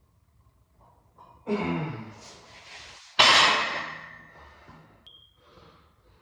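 A loud metal clank of gym weights being set down, ringing briefly as it fades, about a second and a half after a falling, groan-like sound. A short high ping follows near the end.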